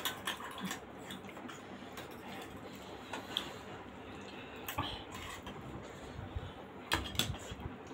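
Metal spoons clinking and scraping against steel bowls and plates while chutney is scooped onto momos: a few scattered light clinks, several close together about seven seconds in.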